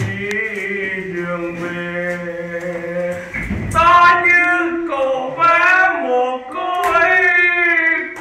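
Singing voice holding long, drawn-out notes that bend in pitch, getting louder and higher about four seconds in.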